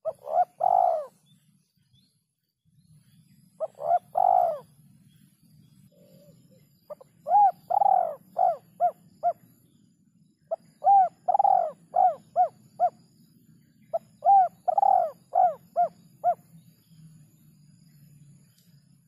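Spotted dove (terkukur) cooing. It starts with two short groups of about three coos, then gives three longer phrases, each a strong coo followed by a quick run of shorter coos.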